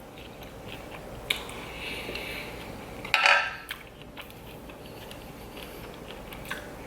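Close-miked eating sounds: chewing, with a sharp click about a second in and a louder crisp bite or crunch about three seconds in.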